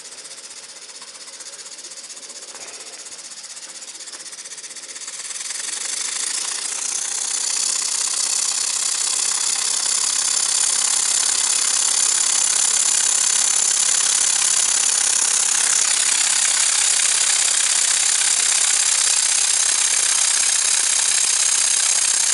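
Muncaster model table steam engine speeding up as its steam valve is opened wide on high boiler pressure: the exhaust beats grow louder and quicker over several seconds into a rapid hissing chatter, then hold steady at high speed.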